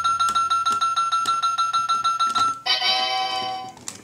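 Robocar Poli toy gas pump's electronic fuelling sound: a steady beeping tone pulsing about seven times a second. It stops sharply about two and a half seconds in and gives way to a short electronic chime jingle that fades after about a second.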